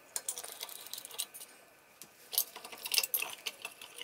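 Small metallic clicks and clinks of a screwdriver and screws as a bench grinder's wheel guard is unscrewed: a scattered run of sharp ticks, with a short pause a little past the middle and a busier cluster near the end.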